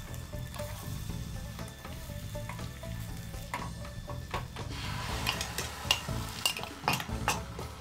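Beaten egg mixture sizzling in a hot, oiled square tamagoyaki pan, busier from about five seconds in as a new layer is ladled in, with light clicks of wooden chopsticks against the pan.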